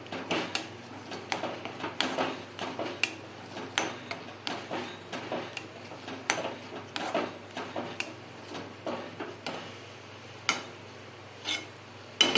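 Metal spoon stirring thick besan pithla in a kadhai, knocking and scraping against the pan in irregular clicks a few times a second, thinning out near the end.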